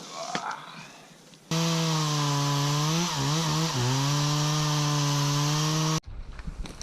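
Chainsaw running flat out with a steady high engine note. Its pitch sags for about a second midway as it bogs under load in the cut while ripping a log lengthwise. The sound starts abruptly a second and a half in and cuts off suddenly near the end.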